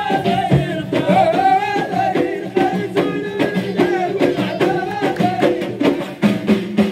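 Moroccan folk troupe of men singing to hand-held frame drums struck in a steady rhythm, heard through a stage PA.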